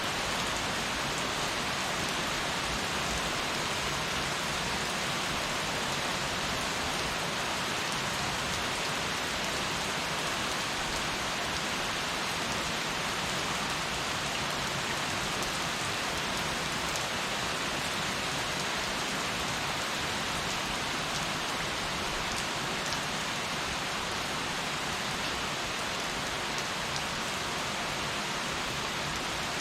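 Heavy rain falling steadily, a dense even hiss of drops hitting a surface, with no thunder heard.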